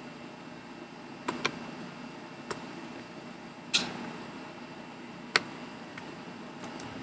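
About six sharp metal clicks and taps as a small hand tool and a wrench work at the bar nuts and chain tensioner on an Echo chainsaw's side cover. The loudest click comes a little past halfway, over a steady hiss.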